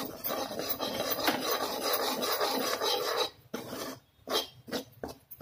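Steel spoon scraping and stirring crumbly wheat flour and ghee residue around a metal kadhai as it is roasted. A continuous gritty rasp for about three seconds, then a few short separate scrapes.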